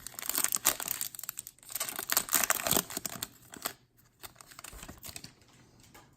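Foil trading-card pack wrapper crinkling as it is handled. A dense crackle runs for about the first four seconds, then thins to a few light clicks.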